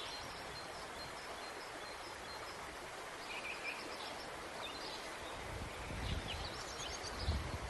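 Outdoor rural ambience: a steady background hiss with faint, scattered bird chirps. About halfway through, a low rumble comes in and swells briefly near the end.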